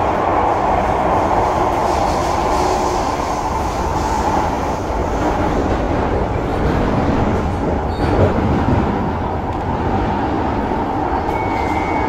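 C151B Singapore MRT train running between stations, heard from inside the carriage: a steady rumble of wheels on rail. There is a single knock about eight seconds in and a faint high squeal near the end.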